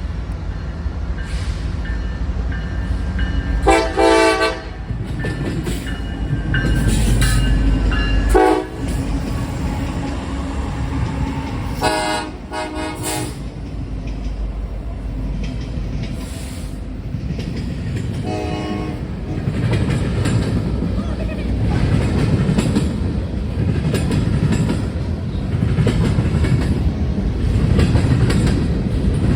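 Diesel locomotive horn sounding a series of blasts: a long one about four seconds in, a short one near eight seconds, two close together around twelve to thirteen seconds, and a short one near nineteen seconds. Under it is the steady rumble of the train passing, growing louder with wheel clatter in the later part.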